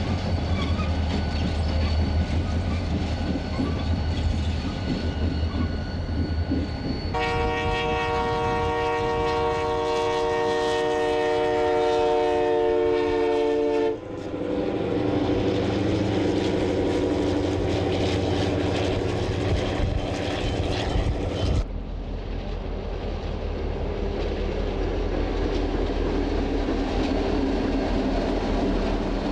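EMD diesel-electric locomotives in a run of scenes. First a locomotive engine runs with a low rumble. About a quarter of the way in, a multi-note locomotive horn sounds a long blast of about seven seconds. After that a train runs on, and in the final part a locomotive passes.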